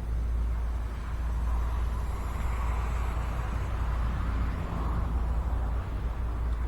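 Steady low rumble of wind buffeting the microphone, with a distant motor whir that swells and then fades from about a second and a half in.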